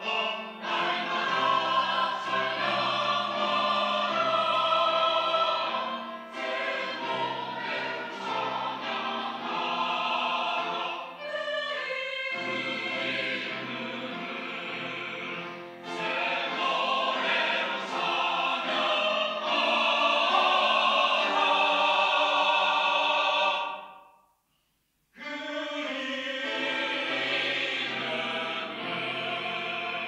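Mixed church choir singing a sacred anthem in full voice. About three-quarters of the way through it breaks off into a brief silence, then resumes more softly.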